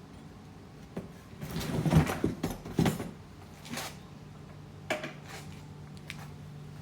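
A gas pressure washer being pulled out of its cardboard shipping box: an irregular run of knocks, scrapes and rustling, loudest about two to three seconds in, with a couple of single knocks after.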